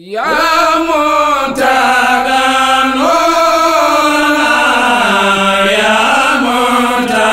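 Male voice chanting a devotional praise song in long, drawn-out held notes that slide up and down between pitches.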